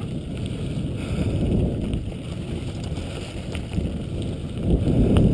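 Steady rumbling of a dog-pulled rig's wheels rolling over a dirt and gravel trail, with wind buffeting the microphone.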